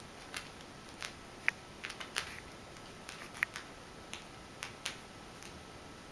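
A kitten playing with yarn on a carpet: about a dozen light, irregular clicks and taps over faint room hiss, two of them with a brief high ring.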